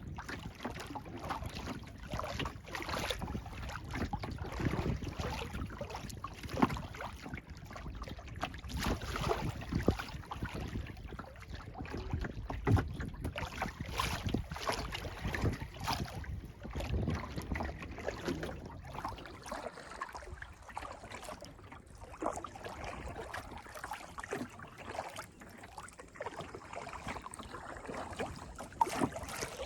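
Kayak paddling: the paddle blades dipping and splashing in the water, with water lapping at the hull and a few sharp knocks.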